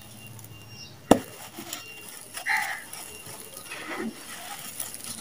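Hands crushing lumps of dry red sand-cement into loose, gritty sand: soft irregular crumbling and trickling, with one sharp crack about a second in as a lump breaks.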